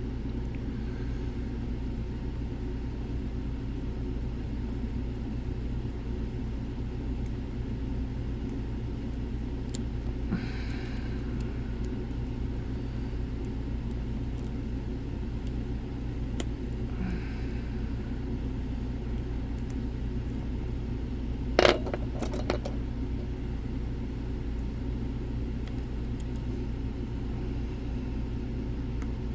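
Scattered faint metallic clicks and scrapes of lock picks working the pins of a Lockwood twin padlock, with one sharper metal clink about two-thirds of the way through, over a steady low hum.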